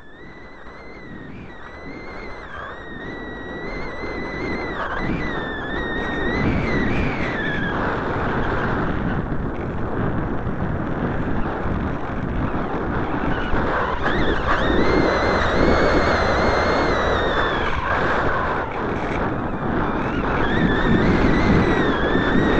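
Airflow rushing over the microphone of a camera riding on a flying discus-launch glider, swelling over the first six seconds or so and then holding steady. A thin, wavering whistle runs through the rush.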